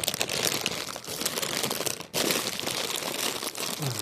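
Plastic snack bag of popcorn crinkling as it is handled, in a loud, dense run of crackles that breaks off briefly about two seconds in.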